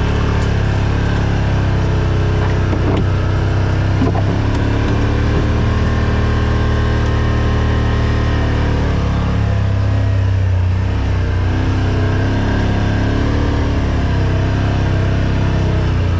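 Side-by-side UTV engine running steadily while crawling a rutted dirt trail, its note shifting slightly about nine seconds in, with a couple of brief knocks about three and four seconds in.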